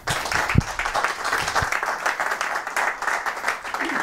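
Audience applauding, many people clapping at once; it starts suddenly and keeps up steadily.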